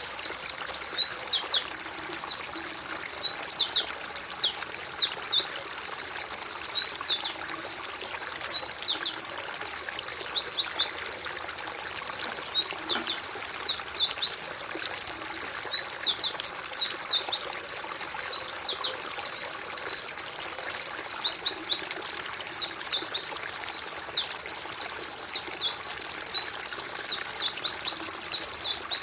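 A flock of white-eyes (pleci, Zosterops) chattering: many thin, high, rapid chirps and short sweeping notes overlapping without pause. It is a tutor recording meant to stimulate a silent caged white-eye to sing.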